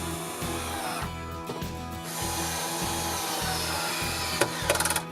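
A power drill running for a couple of seconds in the middle, over background music with a steady beat, ending in a few quick clicks.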